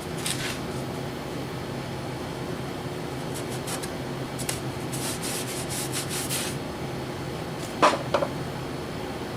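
Handling noises at a workbench: faint scraping or rubbing strokes over a steady hum, then two sharp knocks close together about eight seconds in.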